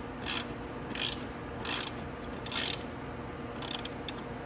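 Socket ratchet clicking in short repeated strokes, about five, one every 0.7 s or so, as the motorcycle's axle bolts are tightened down.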